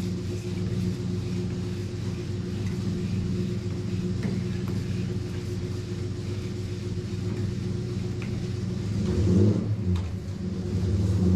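A machine running with a steady low hum that shifts near the end.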